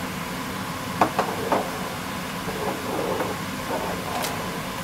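Pan of mussels simmering on the stove: a steady hiss over a low hum, with three sharp clicks about a second in.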